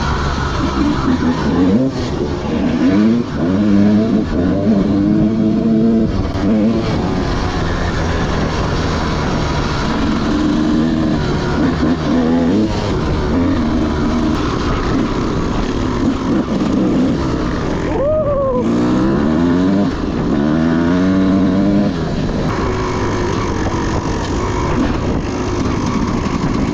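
Dirt bike engines running, with the throttle opened and closed over and over so the pitch keeps rising and falling.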